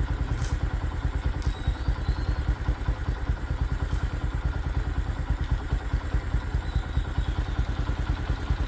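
Motorcycle engine idling steadily, a fast even low putter, with a few faint clicks over it.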